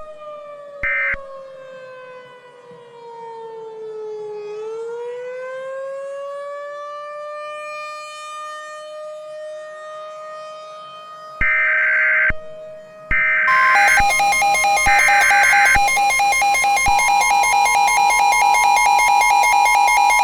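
Emergency Alert System tone sequence. About a second in, a short burst of digital SAME data ends the previous message, while a siren tone falls and then rises back to a steady pitch. From about eleven seconds in, three rasping SAME header bursts are followed by the loud, steady two-tone EAS attention signal, which is still sounding at the end.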